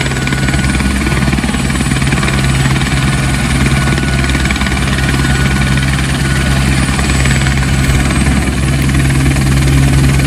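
Helicopter running on the grass as it prepares to lift off: a steady, loud low rotor drone with a thin high whine over it, growing slightly louder near the end.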